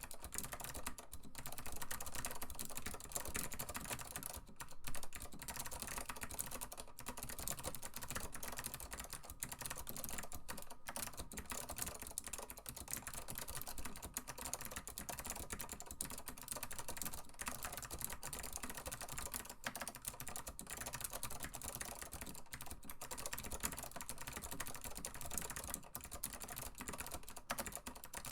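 Continuous fast typing on an Acer KB-102AS keyboard with clicky ALPS SKCM Blue switches, a dense stream of sharp key clicks with only brief pauses.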